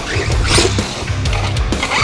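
Background music with a heavy, pulsing bass line, and a brief rush of noise about half a second in.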